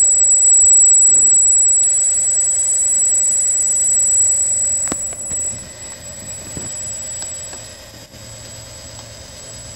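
Electric hydraulic pump of a 1/8-scale RC wrecker truck running, with a steady high-pitched whine over a lower hum. The sound drops in level about halfway through, and there is a single click near five seconds in.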